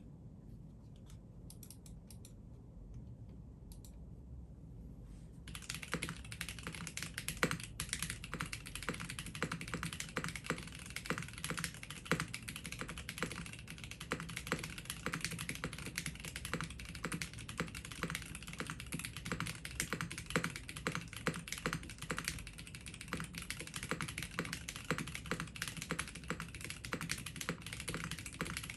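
Typing on a Mode Sonnet mechanical keyboard with AEBoard Naevy switches and Owlab stabilizers: a few light key presses, then steady, fast typing from about five seconds in.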